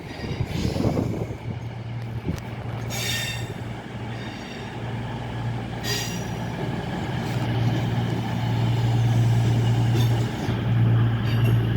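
Arriving CrossCountry diesel train: a steady low engine hum that grows louder as it draws in, with two short, high wheel squeals about three and six seconds in.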